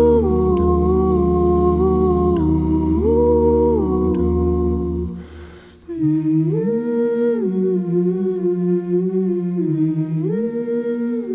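A cappella vocal ensemble humming wordless sustained chords. A deep bass voice sits under the first few seconds. About five seconds in, the sound breaks off briefly, then the humming resumes higher and lighter, with the chords stepping up and back down twice.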